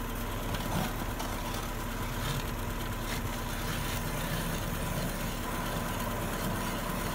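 Steady low rumble with a faint constant hum, unchanging throughout, with no distinct knocks or clicks.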